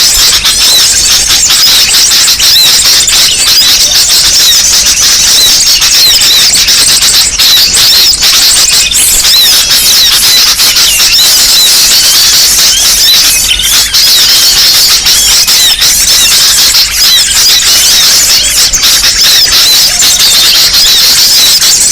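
Loud, dense chorus of many small birds chirping and twittering over one another without pause: a bird-catchers' lure recording of a noisy flock of small birds.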